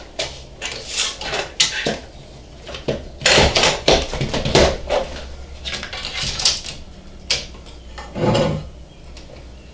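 Tools and metal parts being handled on a workbench: irregular clicks, knocks and clatter, busiest and loudest a little after three seconds in, with one more knock near the end.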